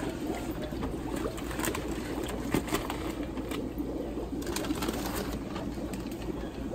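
Steady low, burbling hum of aquarium air pumps and bubbling airlines, with a few light knocks and crinkles as plastic fish bags are set on the tank tops.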